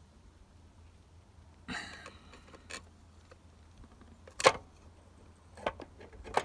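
Metal clicks and knocks of a bolt and tools being handled while the bolt is fitted: a soft rustle, then a few separate sharp clicks, the loudest about four and a half seconds in.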